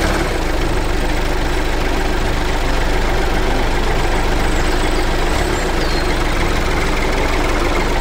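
Truck engine running steadily, a constant low rumble without revving.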